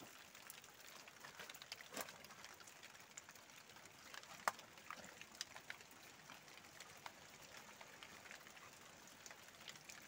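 Faint water dripping from a spring seeping out of a rock hollow: scattered soft drips over a quiet hiss.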